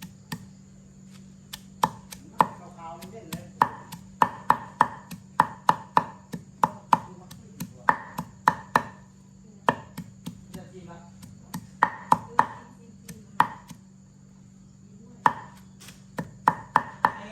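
Food being chopped or pounded in the kitchen: sharp strikes come in quick runs of several hits separated by short pauses. A steady low hum runs underneath.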